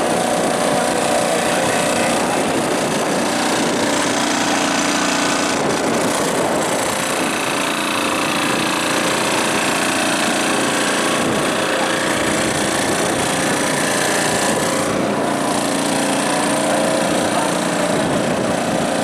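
Several small engines running steadily at once, overlapping into a continuous loud din, with voices underneath.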